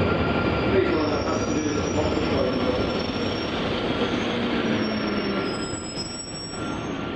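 London Underground Northern line train slowing into a station. The running noise fades steadily, and thin high-pitched wheel squeals come in about a second in and last until near the end.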